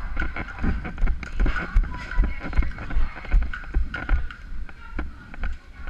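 Footsteps at about two steps a second, heard as low thuds with light scuffs and rattles close to the microphone.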